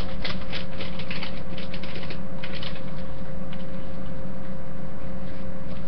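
Rapid rustling and tapping as hands handle things right at the microphone, busiest in the first half, over a steady hum.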